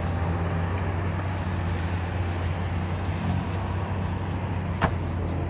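Lamborghini Aventador SVJ's V12 engine idling steadily as the car parks, with one sharp click near the end.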